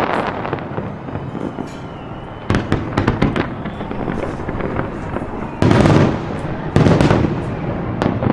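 Fireworks display: a continuous crackle of bursting shells, with loud sudden bangs about two and a half, five and a half and seven seconds in.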